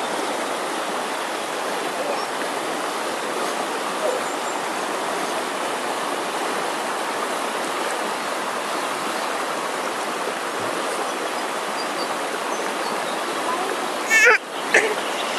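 Steady rushing of a flooded river's fast current around a person wading across it. Near the end a voice calls out briefly.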